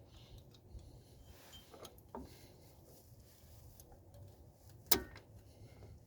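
Small scattered metallic clicks and taps of drum brake hardware and hand tools being worked, with one sharper, louder click about five seconds in.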